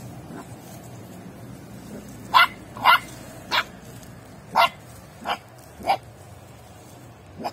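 A puppy barking: six short barks over about four seconds, then one more near the end.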